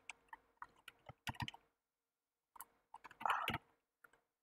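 Computer keyboard typing: a string of separate keystrokes, a pause of about a second, then a quicker run of keys.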